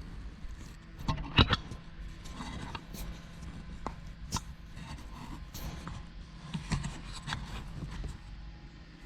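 Hand work on a VW Beetle's shift rod coupler in the floor tunnel: irregular metallic clicks, knocks and scrapes of tools and parts, with one sharper knock about a second and a half in.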